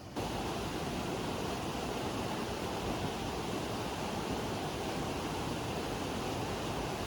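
Mountain valley stream rushing over rocks, a steady even rush that cuts in suddenly just after the start.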